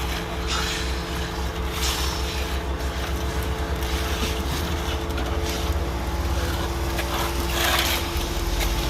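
SANY 37-metre truck-mounted concrete pump running under load: a steady low engine rumble with a steady whine, and a few short hissing bursts.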